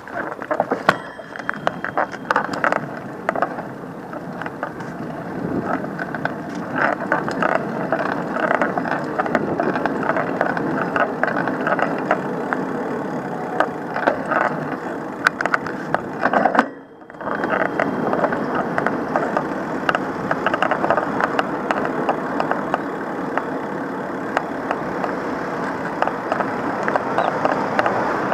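A moving vehicle rattling as it travels: a steady rumble thick with small clicks and rattles, dipping briefly about two-thirds of the way through.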